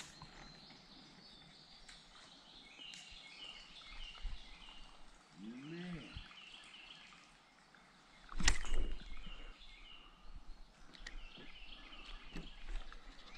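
Birds singing in repeated short chirping phrases over quiet creekside ambience, with one loud sharp knock about eight and a half seconds in.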